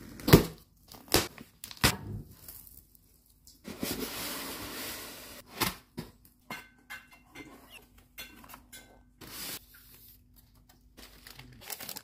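Cardboard box being unpacked: three sharp knocks on the cardboard in the first two seconds, then packing tape being torn off for about two seconds, followed by scattered clicks and rustles as the flaps and packaging are handled.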